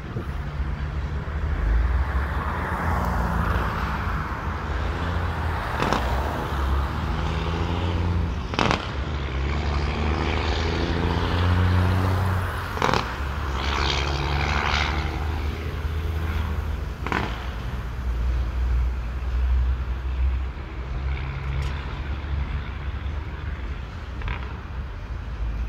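Freight train of hopper cars rolling through a road crossing: a steady low rumble, with a road vehicle passing close by around the middle and four sharp knocks scattered through.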